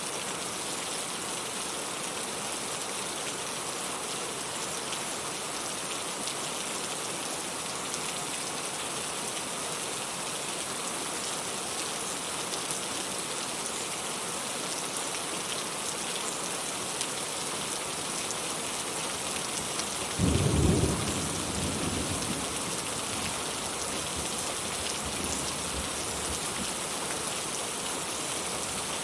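Steady rain falling, an even hiss. About twenty seconds in comes a brief low rumble that fades away over a couple of seconds.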